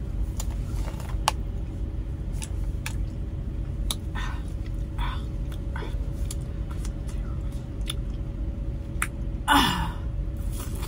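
Idling truck engine as a steady low rumble inside the cab, with scattered small clicks and rustles. About nine and a half seconds in comes a brief louder burst of noise with a falling tone.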